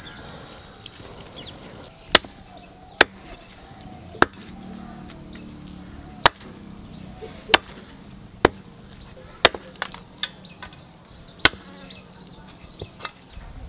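Heavy cleaver chopping raw goat meat on a wooden stump block. It strikes a dozen or so sharp chops at an irregular pace of about one a second.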